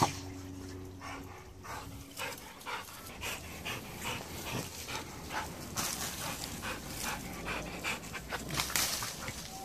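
Dog panting in a run of quick breaths, about two to three a second, growing louder toward the end. A sharp click comes at the very start.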